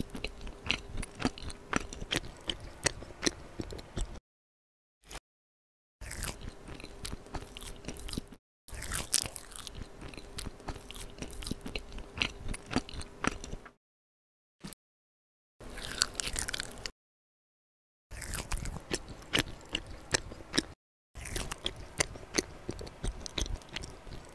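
Eating sounds of crunchy, crackly chewing and biting, as of macarons being eaten. They come in several separate stretches, each cut off abruptly by dead silence, with a softer, squishier stretch in the middle.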